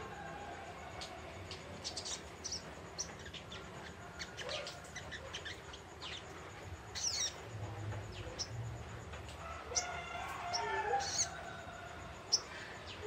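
Spiderhunter (sogok ontong) twittering: scattered short, high chips and quick down-slurred notes, with a lower warbling run about ten seconds in.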